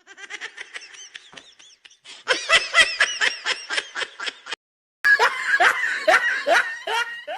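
Rhythmic laughter in three bouts of quick, evenly repeated 'ha-ha' pulses, about five a second. There are short breaks about two and five seconds in, and the middle bout is the loudest.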